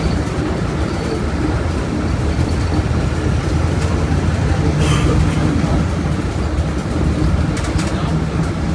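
Diesel engine of a Volkswagen Volksbus 17.230 OD bus running, a steady loud rumble whose low note grows stronger briefly about five seconds in and again near the end. A short sharp click sounds about five seconds in.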